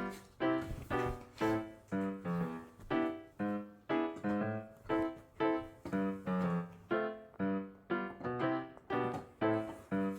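Background music: a piano-like keyboard melody of evenly paced single notes, about two a second, each dying away quickly.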